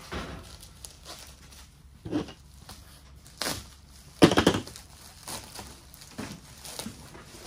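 Plastic wrapping crinkling and rustling in irregular bursts as packets of nylon stockings are handled and pulled from a cardboard box. The loudest rustle comes a little past four seconds in.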